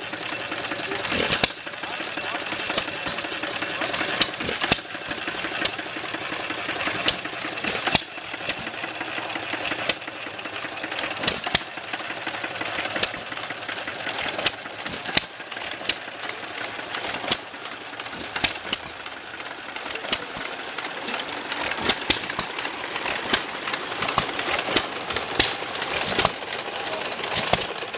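An engine running, with sharp, loud bangs about once a second at uneven intervals.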